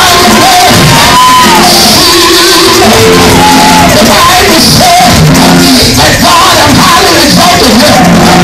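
Loud church praise music with voices shouting and singing over held chords.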